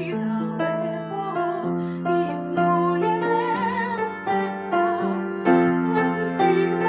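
A woman singing a slow song with vibrato over piano accompaniment.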